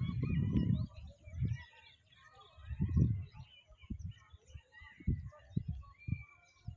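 Wild birds chirping outdoors, many short calls and one held whistle near the end. Several low, muffled bursts come and go, loudest at the start and about three seconds in.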